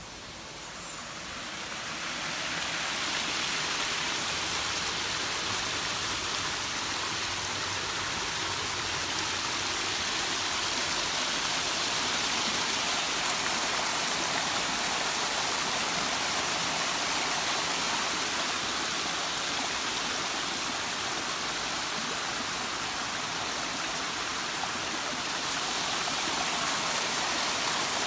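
Small woodland stream tumbling over rocks in a little cascade: a steady rush of water that grows louder over the first few seconds, then holds.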